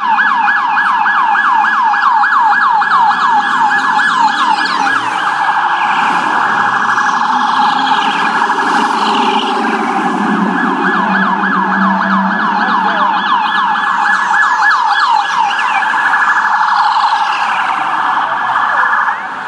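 Police car siren sounding in a fast, continuously repeating up-and-down yelp, with a lower rumble underneath.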